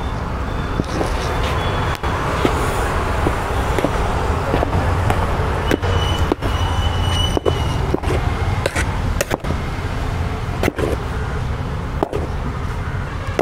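Steady low street and traffic rumble, with sharp knocks and clicks at uneven intervals from utensils at the stall while rice-flour dough is mixed with masala.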